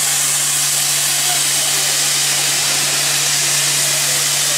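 Steam blowing off from the safety valve of rebuilt Bulleid Light Pacific 34046 Braunton: a loud, steady hiss of steam, the sign of the boiler at full pressure while the engine stands, with a steady low hum underneath.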